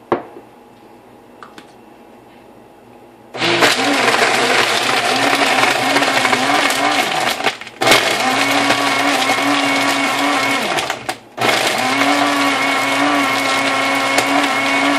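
Hamilton Beach personal blender blending a protein shake with crushed ice. It starts about three seconds in and runs in three pulses of a few seconds each, with short stops between. The motor's hum wavers under the grinding of the ice.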